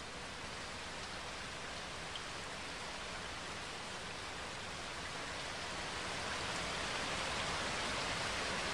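Steady rain falling, an even hiss that slowly grows louder.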